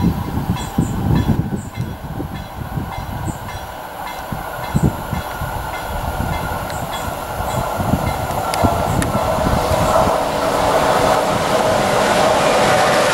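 Container freight wagons rolling away on the track, wheels thumping irregularly over the rail joints. A steady rail hum grows louder through the second half.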